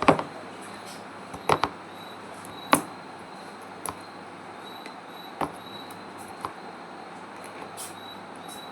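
Handling sounds from unboxing a bottle and its packaging: a few short sharp clicks and knocks, spaced roughly a second apart, over a steady hiss.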